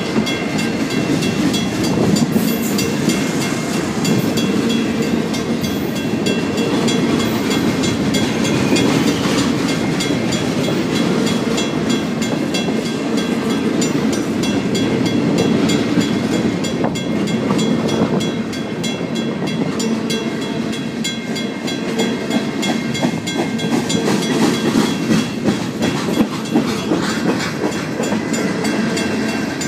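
A freight train rolls past a railroad crossing, a locomotive and then a long string of gondola cars, with a steady rumble and wheels clacking over the rails. Throughout, the crossing's mechanical bell rings steadily over it.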